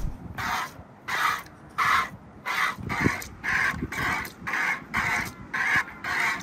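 Hand milking: jets of milk squirted from the teat hiss into a plastic bucket in a steady rhythm of about two squirts a second.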